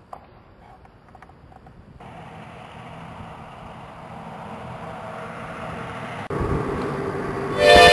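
A rushing noise that grows steadily louder and jumps up sharply about six seconds in, then music with held notes starts near the end.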